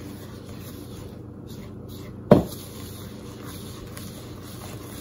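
Wooden spoon stirring oat-flour cookie dough in a plastic mixing bowl, with one sharp knock a little over two seconds in.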